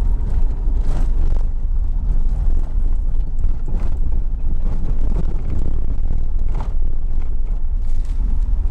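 Vehicle driving along a rutted dirt track: a steady deep road rumble with scattered knocks and rattles.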